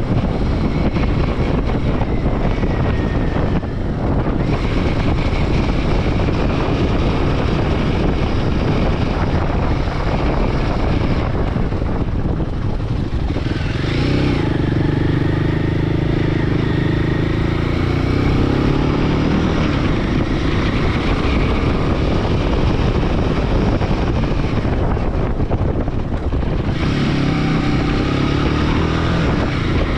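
Royal Enfield Himalayan 450's single-cylinder engine running under way, mixed with steady wind rush. The engine note rises and falls around the middle and again near the end as the speed changes.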